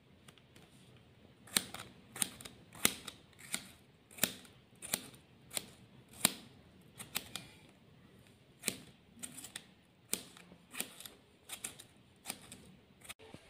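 Kitchen knife cutting tomato into small pieces in the hand, a sharp click with each stroke, about one and a half a second at a fairly even pace.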